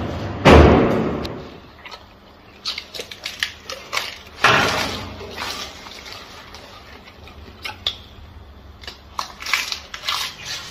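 Gorilla eating: wet chewing and mouth-smacking clicks, with a loud burst of noise about half a second in and another about four and a half seconds in.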